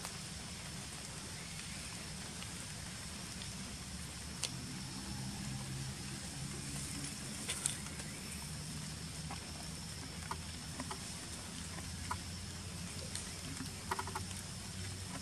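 Steady outdoor background: a low hum with a faint high drone above it, broken by a few short clicks and small rustles.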